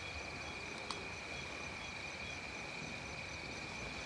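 Night insects chirring: one steady high-pitched drone with a second insect pulsing evenly above it, and a single sharp click about a second in.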